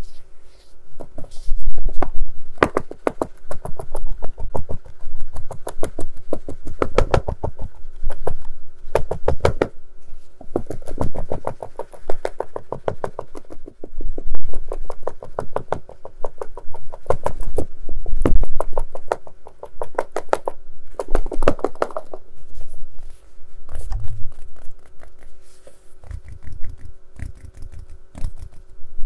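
Fast tapping and clicking on a hard case, in runs of quick taps lasting a second or two each, over a faint steady hum.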